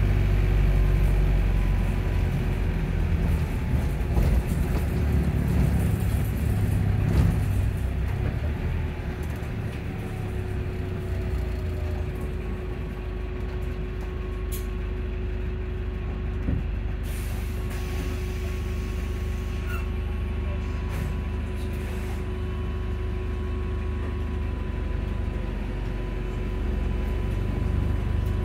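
Volvo hybrid bus running, heard from inside the passenger saloon. A heavy low rumble eases after about eight seconds to a quieter steady hum with a constant whine, with a few short hisses of air in the middle.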